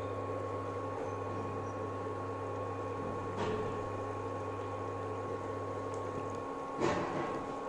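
Rings of milk-powder dough sizzling as they deep-fry in hot oil in a frying pan, over the steady electrical hum of an induction cooktop. Two brief louder bursts, about three and a half seconds in and again near the end, as another ring goes in or the spoon touches the pan; the lowest part of the hum drops away shortly before the second.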